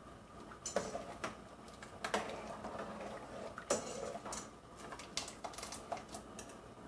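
Irregular light clicks and knocks of a kitchen utensil against a cooking pot while basmati rice is being parboiled.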